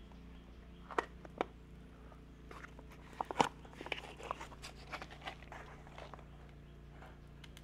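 Crinkling and crackling of a plastic oil pouch, a scattering of sharp clicks, as it is handled and squeezed to pour engine oil into a four-stroke brush cutter's oil filler.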